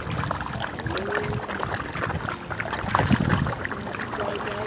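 A dense crowd of pond fish thrashing and splashing at the water's surface, a continuous churning and slapping of water with a louder burst about three seconds in.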